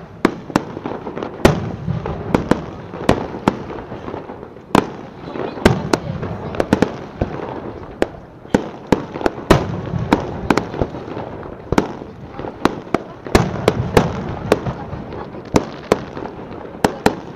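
Fireworks display: aerial shells going off in quick irregular succession, sharp bangs often about two a second, with a continuous rumble between them.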